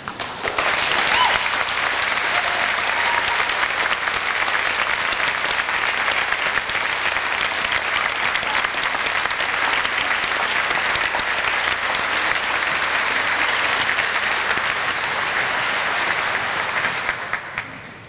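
Audience applauding: a long run of steady clapping that swells in about half a second in and dies away near the end.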